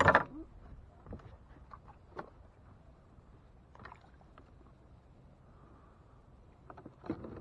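A crab trap being hauled up by its rope over the side of a small boat: a brief clatter of knocks at the start, then faint rope and water sounds, and a few knocks and splashes near the end as the wire trap nears the surface.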